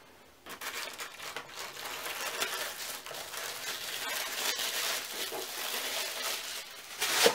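Tissue paper crinkling and rustling as it is unwrapped from a leather planner, starting about half a second in, with a louder rustle near the end.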